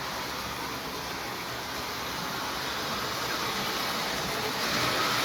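Lionel 752W Union Pacific City of Portland toy streamliner running on its track: a steady whir of motor and wheels on the rails that grows louder about four and a half seconds in.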